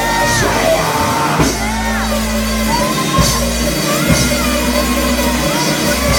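Church praise music with long held low notes, and men's voices yelling and shouting in praise over it.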